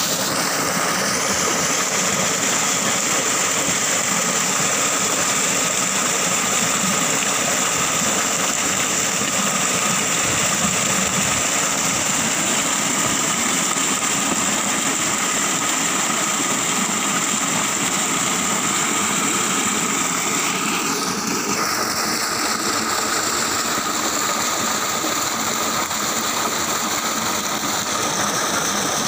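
Heavy, steady rush of water pouring from the wide delivery pipe of a 15 HP pump into a brick channel, with a steady machine whine running through it.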